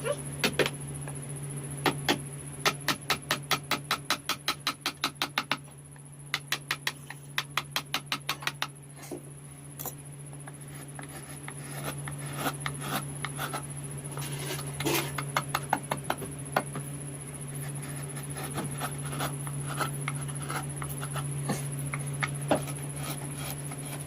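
A hammer tapping a carving chisel into wood in quick even strokes, about four a second, in two runs. The taps then turn slower and irregular, with some scraping. A steady low hum runs underneath.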